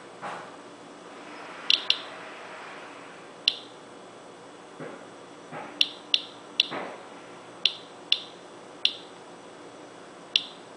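Inspector Alert Geiger counter clicking at random intervals, about ten sharp clicks, each one a detected radiation count. The reading sits near 0.01 mR/hr, a low rate typical of natural background.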